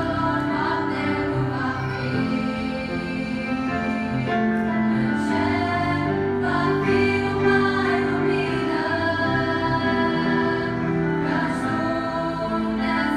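Mixed church choir, mostly women's voices, singing a sacred song in held, sustained notes, accompanied by a grand piano.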